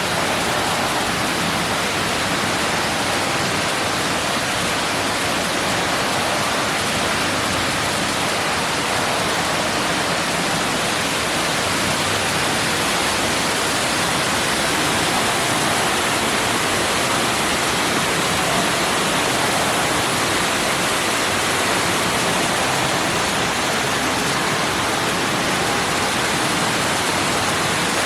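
Artificial indoor waterfall, water falling and rushing steadily into a pool.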